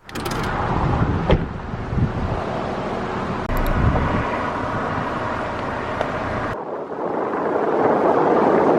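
Steady rumble of a vehicle on the move, with wind on the microphone. It changes abruptly about six and a half seconds in to a hissier wind noise.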